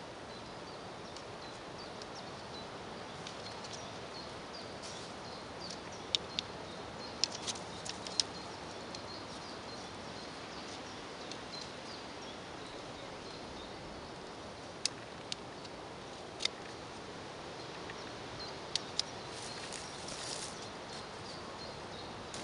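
Steady outdoor background noise with small birds chirping faintly, and scattered sharp clicks and taps, a few close together, as the sections of takedown atlatl darts are handled and fitted together.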